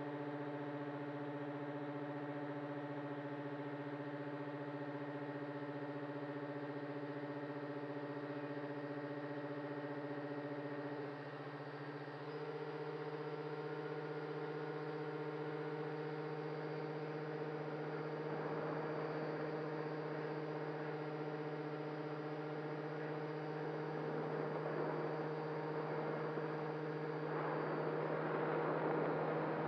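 The RC airship's small electric motors and propellers humming steadily, heard from its onboard camera. The tone shifts about eleven seconds in, and a rushing hiss of air grows near the end.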